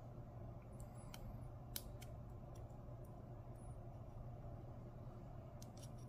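Small metallic clicks of a spring bar tool working a spring bar out of a rubber watch strap: a few scattered ticks in the first half, the sharpest about two seconds in, and two more near the end, over a steady low hum.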